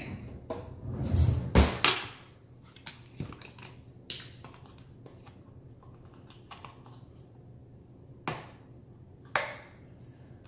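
Kitchen counter handling sounds: rustles and knocks as a cardboard carton of heavy whipping cream is picked up and its spout opened, loudest about a second in. Then a few light clicks and two sharp knocks near the end as a small ceramic measuring cup is handled.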